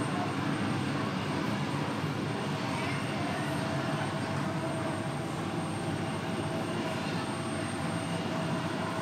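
Airbus A320's CFM56 jet engines running at taxi idle: a steady rushing noise with a constant whine held through it.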